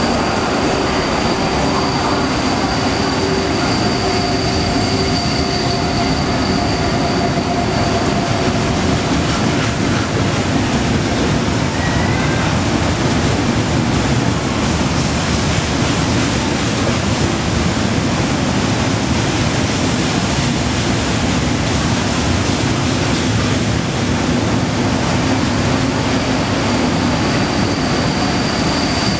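KTT double-deck intercity train, pushed by an RE460 electric locomotive, running through the station close alongside the platform: a steady loud rumble of wheels on rails and passing coaches. A thin high whine runs over it near the start and comes back near the end.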